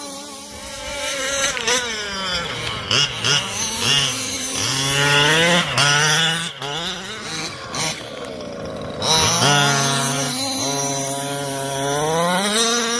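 Small two-stroke petrol engines of 1/5-scale RC cars running, revving up and down over and over as the cars accelerate and slow, their pitch rising and falling; at times two engine notes overlap.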